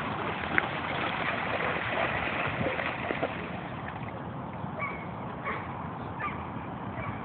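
A dog splashing as it runs through a shallow flooded puddle, with several short splashy clicks in the first three seconds over a steady hiss. Four or five brief, faint high blips come in the second half.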